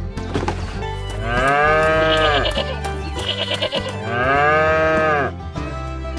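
Two long animal bleats, each rising and falling in pitch for about a second and a half, over steady background music.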